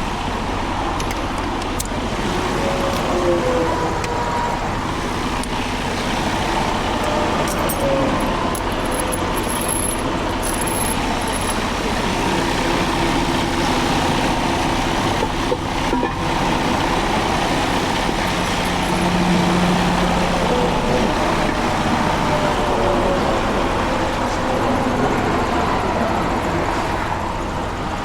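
Steady highway traffic passing close by: a continuous rush of tyres and engines from cars and trucks, with engine tones rising and falling as vehicles go past.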